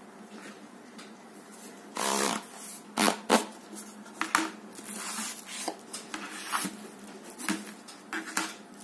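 A black cardboard box being opened by hand: the lid scrapes as it slides off, two sharp knocks follow, then scattered small clicks and rustles of cardboard and plastic wrap as the wrapped baton is taken out.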